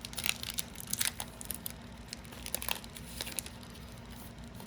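Trading cards and foil booster-pack wrappers being handled: a run of short crinkles and rustles that thins out after about three and a half seconds.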